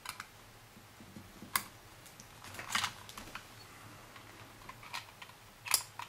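Small screws and tools clicking and tapping against the plastic case of a Bose SoundDock Portable as stuck screws are worked loose: scattered sharp clicks, a small cluster about three seconds in and the loudest just before the end.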